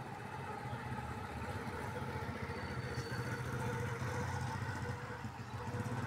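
A steady low engine hum, as of a vehicle idling.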